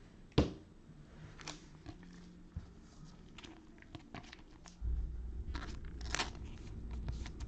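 Trading card packs being handled: foil wrappers crinkling and tearing, with scattered small rustles and clicks. There is one sharp knock about half a second in, and a low rumble comes in about five seconds in.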